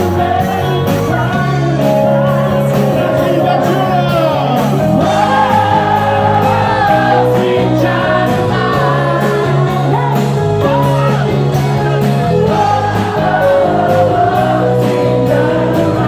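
Live band playing loudly: electric guitar, a steady drumbeat and a lead singer.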